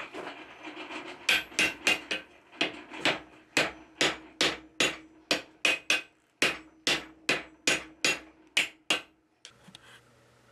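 Hand hammer forging a red-hot iron collar on the anvil: a rapid run of about thirty ringing blows at roughly four a second, with the anvil's ring carrying on between them. The hammering stops about nine seconds in.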